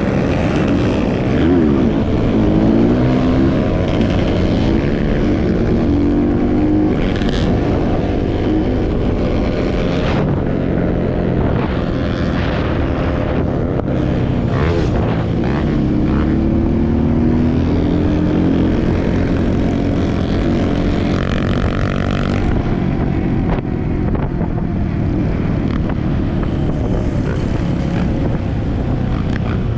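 Off-road trail motorcycle engines running and revving, the pitch rising and falling.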